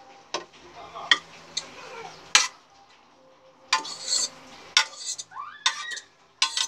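Aluminium pot and utensils clinking and knocking against a frying pan as cooked spaghetti is tipped out of the pot into the sauce. There is a sharp clink about once a second, the loudest about two and a half seconds in.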